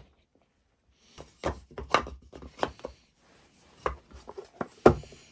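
Wooden boards and blocks knocked and set down on a workbench while being handled and fitted together: a series of short, sharp wooden clacks, the loudest near the end.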